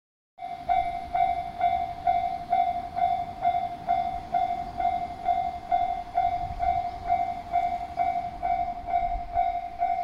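Japanese railway level-crossing warning bell ringing in a steady, even rhythm of a little over two strokes a second, starting a moment in: the crossing is signalling an approaching train as its barriers come down.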